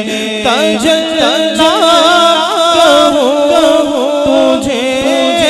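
A man singing a devotional Urdu naat, solo, through a microphone and sound system. The line is melismatic, with long held notes and quick ornamental turns of pitch.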